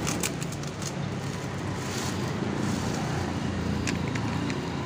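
Plastic bag and bubble wrap crinkling as hands handle a wrapped package, with a few sharp crackles near the start, over a steady low rumble of passing traffic.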